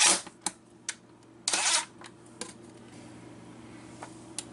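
Several sharp clicks and taps as a cordless drill's bit is set against a metal microwave mounting plate and the wall behind it, with one short burst of noise about a second and a half in.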